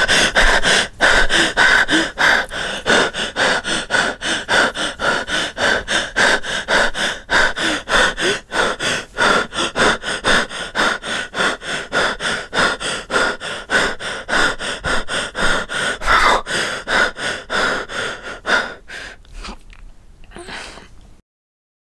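A person breathing fast and gasping, about three to four breaths a second, like hyperventilating in a panic attack, over a steady high ringing tone. The breathing weakens near the end and then cuts off suddenly.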